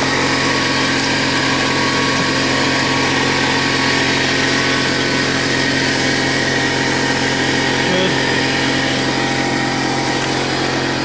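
Portable electric air compressor running steadily, its motor giving an even hum while it builds air pressure in the tank.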